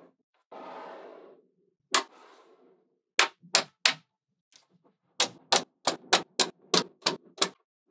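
Small magnetic balls: a short scraping slide as a row of balls moves across the table, then sharp metallic clicks as bars of balls snap together: one, then three, then a quick run of about nine, roughly three or four a second.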